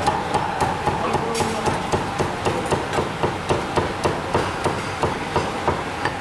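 Steady rhythmic striking, about three to four sharp blows a second, as a hand tool beats on the pork.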